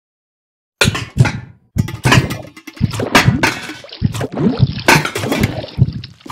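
Wet squelching and splattering gore sound effects of blood and flesh, an irregular run of sloppy wet sounds that starts about a second in after silence.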